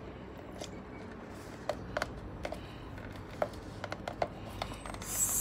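Small plastic clicks and taps as a lime half is handled and fitted into a plastic hand citrus squeezer, then a short hiss near the end.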